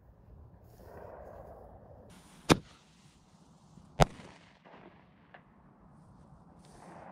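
Two sharp firecracker bangs about a second and a half apart: a homemade FP3 Small Polenböller going off, with a faint hiss before the second bang.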